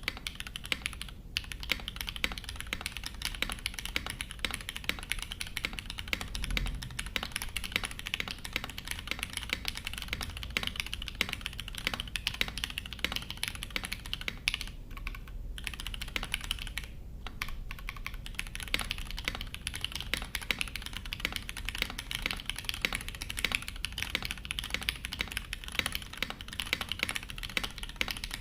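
Fast continuous typing on a Foxlab F80 SE V2 top-mount mechanical keyboard with modded Cherry MX Hyperglide Black linear switches, an aluminium plate, plate foam and PBT keycaps, giving a clacky sound. Typing pauses briefly about a second in and again around 15 and 17 seconds in. The stabilizers have been refitted and modded, so the keys type without the ticking or rattle they had before.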